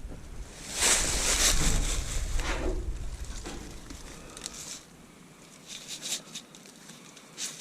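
Wind buffeting the microphone: a rushing gust swells about a second in and dies away by about five seconds, leaving only a few faint ticks.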